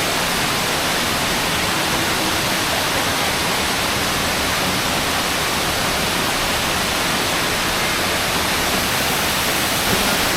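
Huangguoshu Waterfall's falling water making a loud, steady, even rush of white noise.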